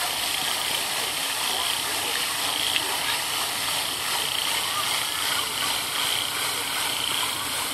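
Fountain jets falling back into the basin: a steady hiss of splashing water, with the chatter of people's voices behind it.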